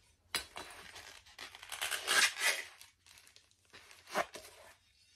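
Rustling and rubbing as bassinet fabric is worked onto its metal frame tubes, in several bursts, the longest and loudest about two seconds in.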